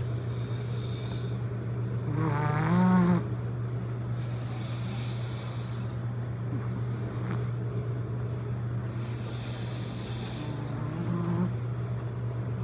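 Snoring in slow breath cycles, one roughly every four seconds, with a loud wavering snore about two to three seconds in and a weaker one near the end. A steady low hum runs underneath.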